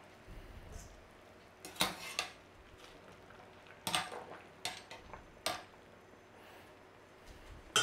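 Wire mesh strainer clinking sharply against a stainless steel saucepan, about five times, while scooping boiled tortellini out of the water.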